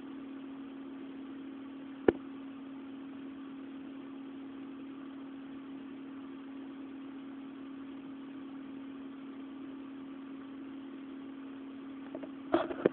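Steady low hum at one pitch over a faint hiss, broken by a single sharp click about two seconds in; near the end come several louder, irregular knocks.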